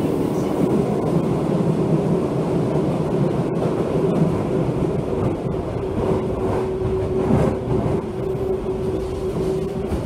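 Osaka Metro 66 series subway car running through a tunnel, heard from inside the car: a steady rumble of wheels on rail with a steady hum over it.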